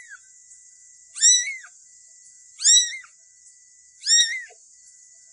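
Very young kitten mewing: three short high-pitched mews about a second and a half apart, each rising and then falling in pitch.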